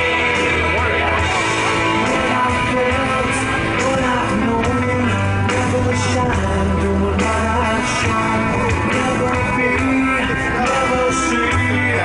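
Rock music with a singing voice over a steady bass line and cymbal hits.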